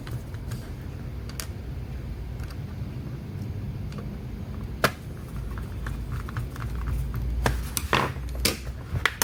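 Scattered clicks and taps from handling laptop hardware during reassembly: a sharp click about five seconds in and a run of clicks and knocks near the end, over a steady low hum.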